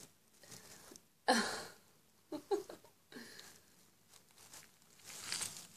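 Straw bedding rustling and crackling in several short bursts, the loudest about a second in.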